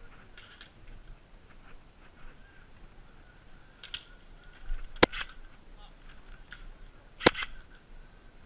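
Two sharp, loud shots from an airsoft replica, about two seconds apart, with a few fainter clicks before them.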